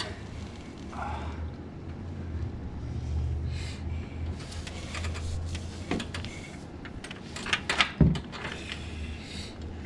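Metal clinks and knocks from tools and parts being handled during engine work, with a cluster of sharp knocks near the end over a steady low hum.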